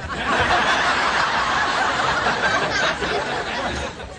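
Studio audience laughing, starting suddenly and dipping briefly near the end.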